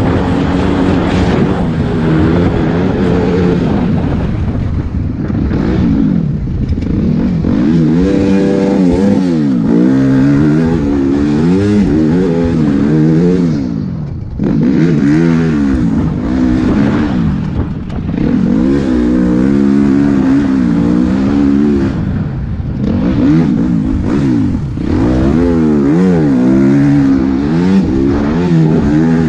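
Motocross bike engine under hard riding, revving up and falling off again and again as the throttle is worked through acceleration, shifts and throttle-offs. The engine briefly eases off about halfway through.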